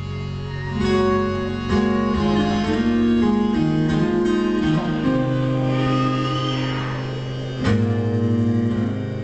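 Live instrumental music: a twelve-string acoustic guitar strummed over sustained cello notes. Full chords ring out about a second in, again near two seconds, and again near eight seconds.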